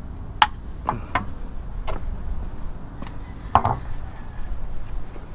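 A few sharp knocks and clicks from things being handled, the loudest about half a second in and another about three and a half seconds in, over a low steady rumble.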